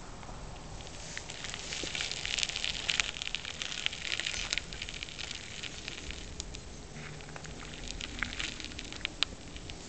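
Quokka foraging, crunching and crackling at dry grass and gravel as it nibbles: a dense run of crisp crackles over a few seconds, then scattered single clicks.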